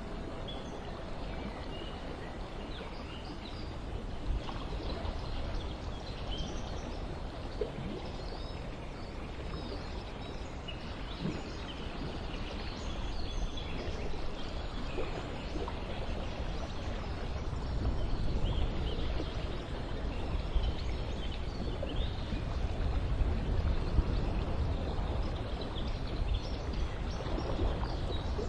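Outdoor garden ambience: a steady wash of running water with birds chirping here and there over it, and a low rumble that swells in the second half.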